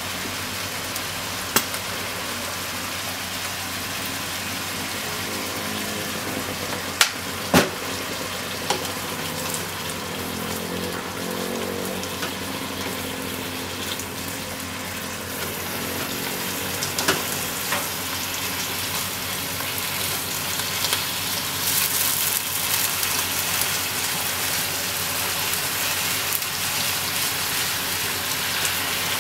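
Pork, shimeji mushrooms and onion sizzling in a frying pan as they are stir-fried with chopsticks, with a few sharp clicks of the chopsticks against the pan. The sizzle grows louder and hissier in the second half, once a dark sauce is in the pan.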